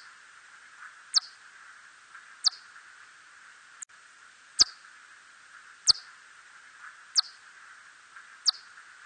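Red bat (Myotis rufoniger) calls: short chirps, each a quick downward sweep, coming about every 1.3 seconds, seven in all, over a steady faint hiss.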